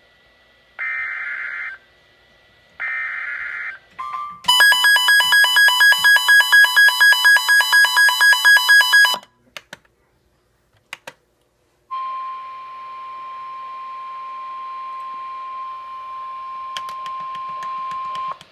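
Emergency alert signalling before a NOAA Weather Radio tornado warning. The last two short bursts of the SAME digital header warble, then a loud electronic alarm beeps rapidly for about five seconds. After a short gap, the steady 1050 Hz warning alarm tone sounds for about six seconds over radio hiss.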